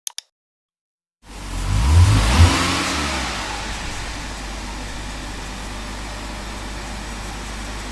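AI-generated car engine sound effect: two brief clicks, then after a moment of silence an engine revs up loudly about two seconds in and settles into a steady running noise that slowly eases off.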